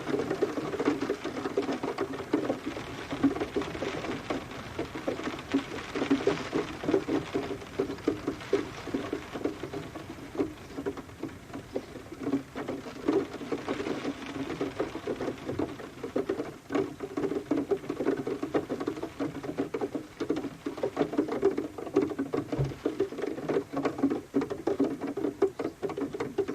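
Steady rain outside a window: a dense, irregular patter of drops.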